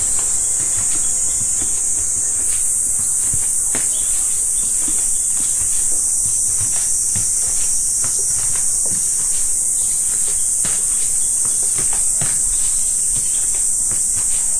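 Cicadas buzzing in a steady, unbroken high-pitched drone, with scattered soft knocks underneath.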